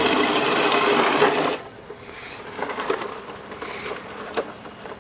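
Manual push reel lawn mower's spinning reel blades whirring and clicking rapidly as they cut through grass. The sound drops off abruptly about one and a half seconds in, leaving only a faint whir with a few scattered ticks.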